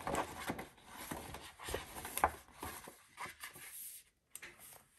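Paper and plastic sheet protectors rustling and crinkling as ring-binder pages are turned and a printed recipe sheet is slid into a sleeve, with a few light taps. It grows quieter after about three seconds.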